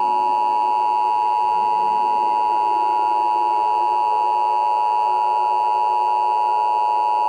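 Emergency Alert System attention signal: the harsh two-tone EAS alarm, two close pitches sounding together, held steady and loud without a break.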